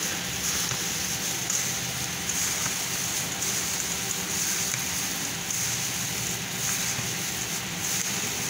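Plastic-gloved hands squishing and kneading marinated chicken with soaked bread in a steel bowl, over a steady hiss and low hum.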